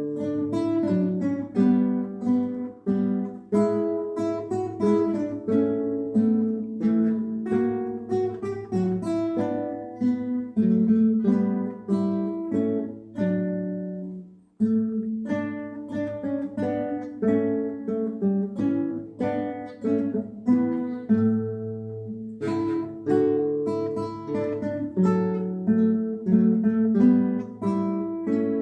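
Guitar ensemble playing a Christmas carol arrangement, plucked notes in several parts at once, with a short stop about halfway through.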